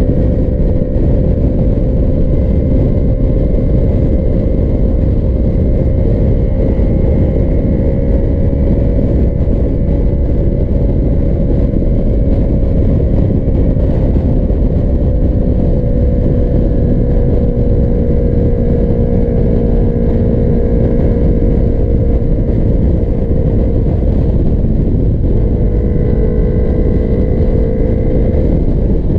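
Sport motorcycle cruising at highway speed: heavy wind rush over the camera microphone, with the engine's steady drone underneath, its pitch sagging slightly and shifting a little about 25 seconds in.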